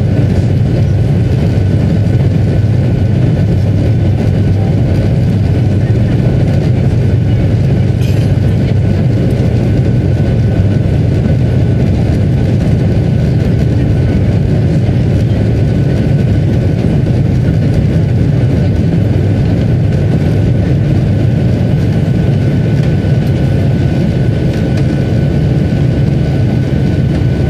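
Jet airliner's engines at takeoff thrust, heard inside the cabin: a loud, steady roar with a thin steady whine above it, through the takeoff roll and lift-off.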